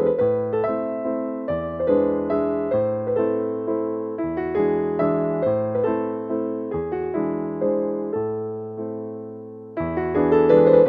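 Background music: a gentle keyboard tune of struck notes that fade away, over low bass notes that change every second or so.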